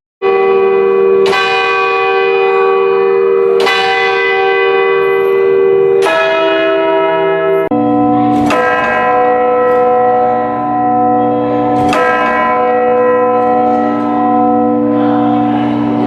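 Church bells ringing slowly, each strike ringing on over the last. A higher bell strikes about four times, then from about eight seconds in a deeper bell takes over with a few more strikes.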